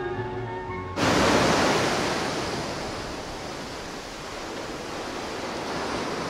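Sea surf breaking and washing around rocks: a dense rushing noise that cuts in abruptly about a second in, loudest at first, easing and then swelling a little. Before it, the last held note of a sung song over music.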